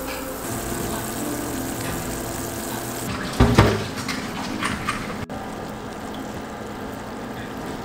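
Sugar syrup boiling hard in a stainless steel pot as it cooks down into caramel sauce: a steady bubbling hiss, with a single thump about three and a half seconds in.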